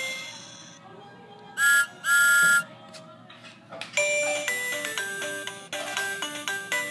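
Electronic sound effects from a children's push-button sound book: a tune fading out, then two loud whistle-like toots, the second longer. From about four seconds in, a short electronic tune of quick stepping notes plays.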